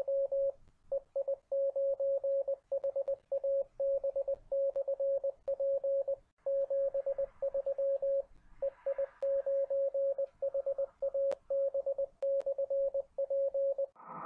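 Morse code (CW): one steady mid-pitched beep keyed on and off in short and long tones with gaps between letters, over faint hiss. It stops just before the end.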